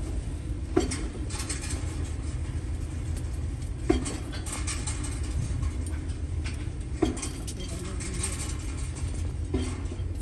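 Steel tie wire being twisted around rebar crossings, with a sharp metallic clink that rings briefly about every three seconds and fainter scratching in between, over a steady low rumble.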